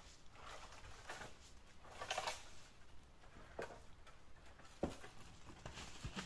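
Faint, irregular footsteps crunching and rustling through dry fallen leaves, with a sharp click about five seconds in.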